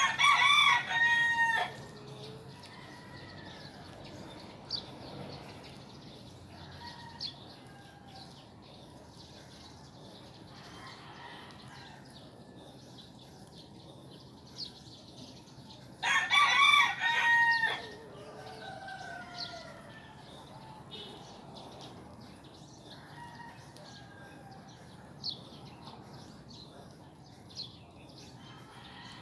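A rooster crowing twice, about sixteen seconds apart, each crow lasting about a second and a half. Small birds chirp now and then in between.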